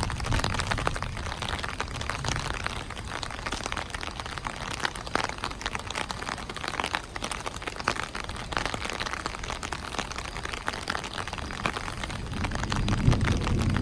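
Heavy rain falling, with many small drop hits on surfaces. A low rumble dies away at the start and builds again near the end.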